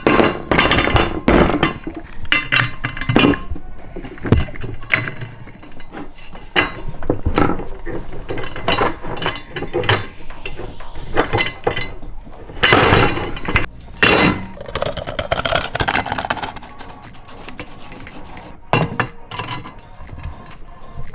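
Irregular clacks, knocks and clatter of an office chair being put together: plastic caster wheels pushed into the five-star base and the seat mechanism fitted onto the gas-lift cylinder.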